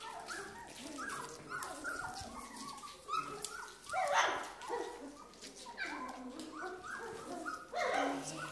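A litter of young golden retriever puppies whining and yelping, several at once, in short high calls that mostly slide down in pitch, with a louder burst of yelps about four seconds in and again near the end.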